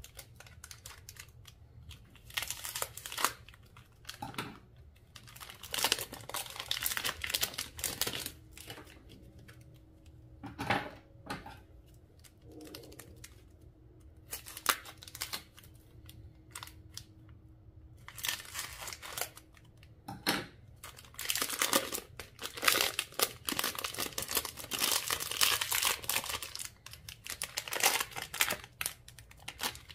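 Slime being squeezed, folded and stretched by hand, giving crinkly crackling and popping in bursts of a second or two with short pauses, and a longer run in the last third.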